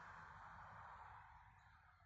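Near silence: a faint steady hiss that fades away near the end.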